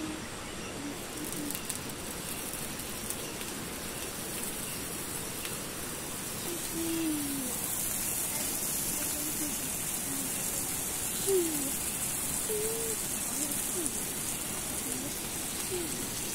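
Food sizzling on a grill grate: a steady hiss that grows stronger about halfway through.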